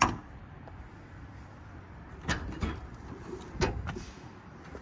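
Service-body compartment door latch: a sharp click at the start, then a few short metallic clicks and knocks about two and a half and three and a half seconds in as the latch is turned and the door swung open.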